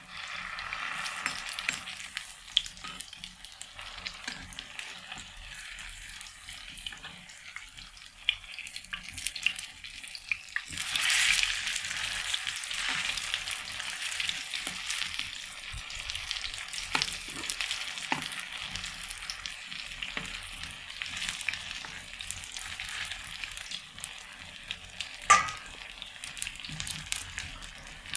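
Batter-coated eggplant slices sizzling and crackling as they shallow-fry in oil in a pan, with a metal spatula scraping and tapping the pan as the slices are turned. The sizzle grows louder about eleven seconds in, and a sharp clink of metal on the pan comes near the end.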